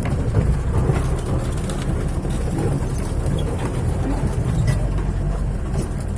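UAZ 315195 off-road vehicle driving along a forest track: a steady low rumble of engine and running gear with a few faint knocks.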